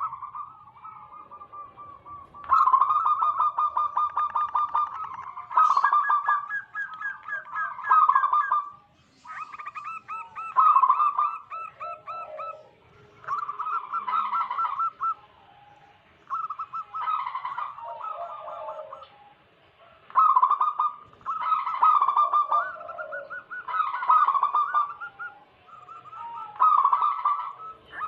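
Zebra doves (perkutut) singing: phrases of about one to two seconds made of rapid staccato cooing notes, repeated again and again with short pauses. Some phrases overlap at slightly different pitches, as from more than one bird.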